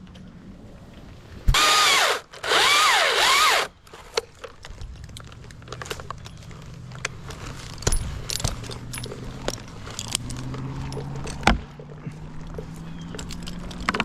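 Chainsaw cutting in two short bursts a couple of seconds in, its pitch dipping and rising as the chain bites. After that, a steady low engine hum with scattered snaps and clicks.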